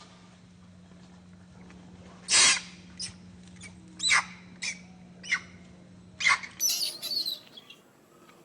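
Monkey squealing: a series of short, sharp, high-pitched squeals, the loudest about two seconds in, ending in a burst of shrill screeches. A faint steady hum runs underneath and stops near the end.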